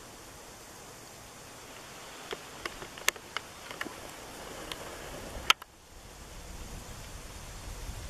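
Wind noise on the camera microphone, with a scattered run of sharp clicks in the middle, the loudest about five and a half seconds in. After a brief drop, a low wind rumble rises.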